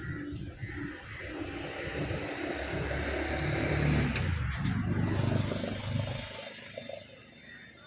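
A motor vehicle passing by, its engine noise swelling to a peak about four seconds in and then fading away.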